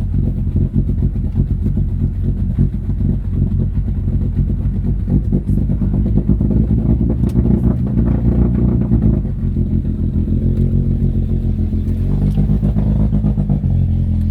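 Opel Blazer engine running with a dense, rough clatter, the engine due for an overhaul. About nine seconds in, the clatter eases and the running turns steadier, with a shift in pitch.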